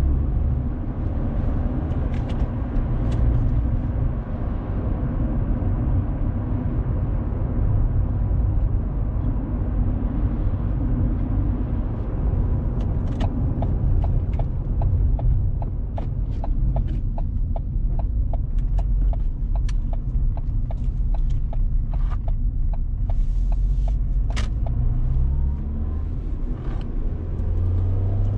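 Car engine and road noise heard inside the cabin as a steady low rumble. From about halfway, a regular ticking comes at about two a second for some nine seconds, and near the end the engine note rises as the car accelerates.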